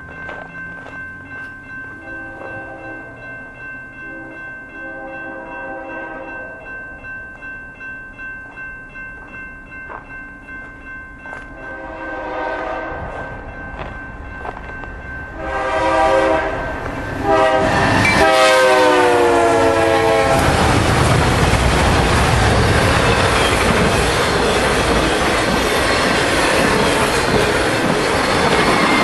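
A BNSF freight locomotive's air horn sounds as the train approaches: faint, separate blasts for the first half, then a loud, long chord whose pitch drops as the locomotive passes. After that comes the loud rumble and clatter of an intermodal train of trailers on flatcars rolling by.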